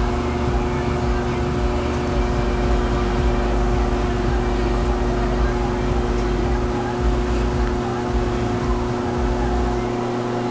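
Steady mechanical hum of a small motor running, holding several fixed tones, with an irregular low rumble beneath it.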